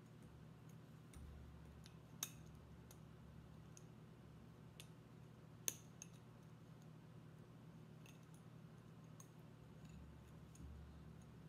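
Quiet, scattered clicks of wire against an agate slice as wire loops are bent down by hand, with two sharper ticks about two and six seconds in, over a low steady hum.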